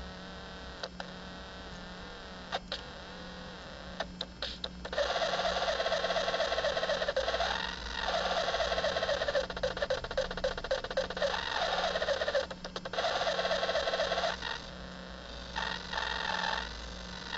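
Circuit-bent toy drum machine putting out glitchy electronic noise as wet fingers bridge points on its circuit board. A low hum with scattered clicks comes first, then from about five seconds in a loud, dense, fast-stuttering buzz that cuts out briefly a few times.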